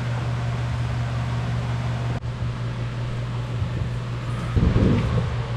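Side-by-side UTV engine running steadily, with a brief louder rumble near the end.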